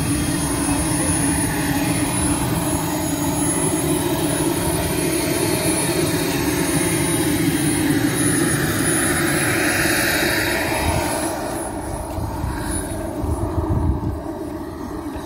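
Radio-controlled model jet's turbine engine running with a steady hiss. The sound swells about eight to eleven seconds in, then falls away.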